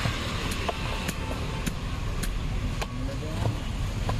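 Heavy cleaver chopping raw jackfruit on a wooden block: a series of sharp knocks, roughly every half second. A steady low rumble of traffic runs underneath.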